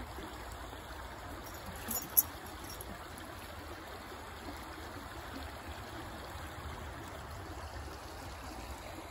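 Small woodland stream running over rocks in shallow riffles, a steady rushing babble of water. One sharp click about two seconds in.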